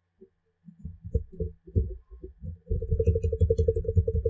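A fast, irregular run of dull low thumps and rumbles with a few faint light clicks, sparse at first and dense from a little past halfway: handling noise from working the mouse and keyboard at the computer desk, picked up by the microphone.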